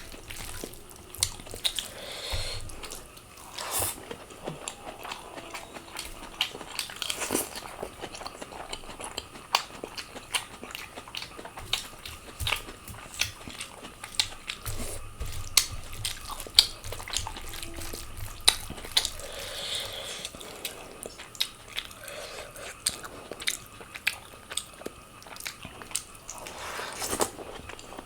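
Close-miked eating: steady chewing and biting with many short, sharp mouth clicks scattered throughout.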